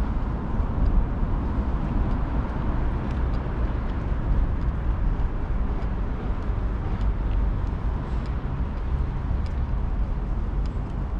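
Steady low outdoor rumble, with faint scattered ticks.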